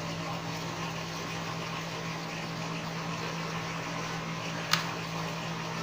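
Steady low electrical hum, with one sharp click nearly five seconds in from fingernails prying at the Redmi Note 4's plastic back panel.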